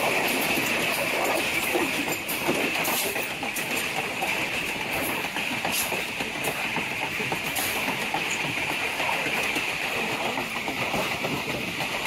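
Passenger train running along the track, heard from its rear coach: a steady rolling rumble and hiss of wheels on rails, with a few sharp clacks.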